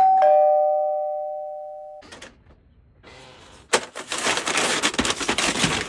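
Two-note falling doorbell chime, ding-dong, ringing out over about two seconds. About halfway through, a loud rustling, knocking noise begins.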